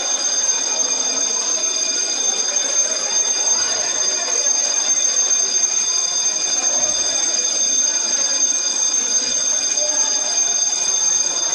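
Building alarm bell ringing continuously with a steady, high-pitched ring, the signal to evacuate, over the chatter of a crowd.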